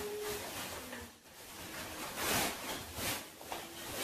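Fabric carry bag of a folded camping chair rustling as it is handled, with two louder swishes in the second half.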